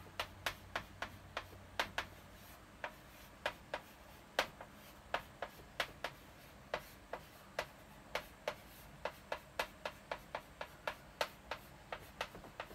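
Chalk tapping and scratching on a blackboard as characters are handwritten: irregular sharp clicks, about two to four a second, with each stroke.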